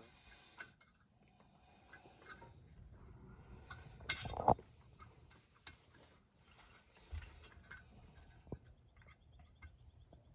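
Metal tools and clutch parts being handled: scattered light clinks and taps, with a louder metallic clatter about four seconds in.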